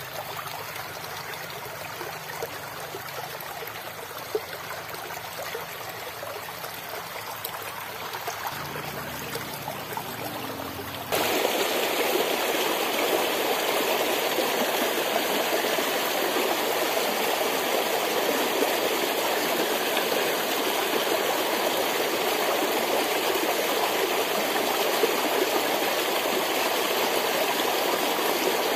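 Small rocky stream running steadily. About eleven seconds in, it turns abruptly louder and fuller, with water splashing down a small cascade between boulders close by.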